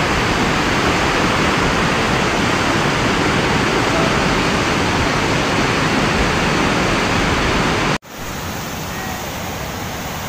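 Fast-flowing flood river of muddy water rushing loudly and steadily. About eight seconds in it cuts suddenly to a quieter rush of water.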